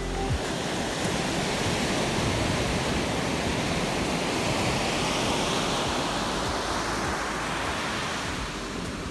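Ocean surf breaking and washing up the shore, a steady rushing wash that eases slightly near the end.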